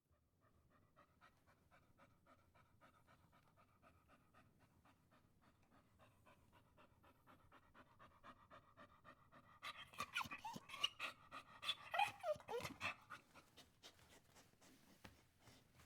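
Dog whining and panting: quick, faint panting with a thin high whine over it. About two-thirds of the way through it breaks into louder whimpers that fall in pitch, then settles back to soft panting.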